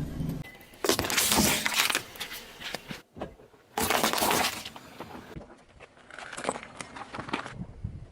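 Objects being crushed under a car's tyres: three separate bursts of crunching and crackling, each about a second long, with a car engine running briefly at the start.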